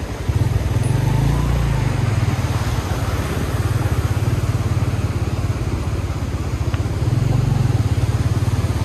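Motorcycle engine running steadily while riding, its rapid firing pulses under a constant rushing noise.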